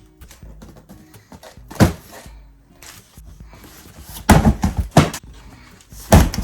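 A few loud thuds and knocks, one about two seconds in, a quick cluster around the middle and another near the end, over quiet background music.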